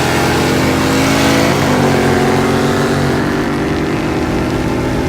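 Car engine running loudly and steadily, its pitch dipping once about a second and a half in, as when the revs drop.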